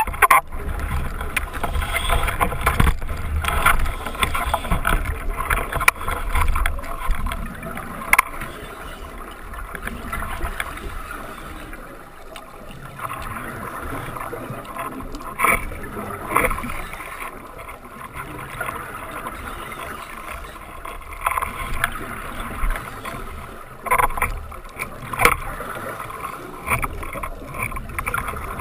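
Underwater sound heard through a camera housing: a scuba diver's regulator breathing, with rumbling, gurgling bubbles on each exhale and short louder surges here and there.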